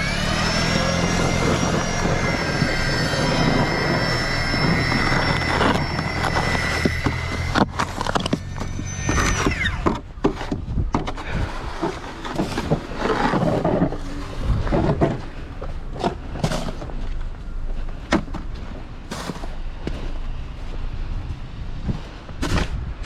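A motor spins up with a rising whine, runs at a steady pitch for about nine seconds and then stops, followed by scattered knocks and scraping.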